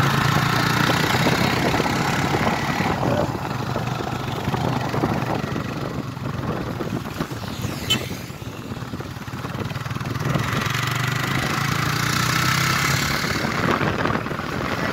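Motorcycle running on the move, a steady low engine hum with rushing noise; the hum is plain for the first few seconds, then the noise thins in the middle and swells again near the end, with one sharp click around the middle.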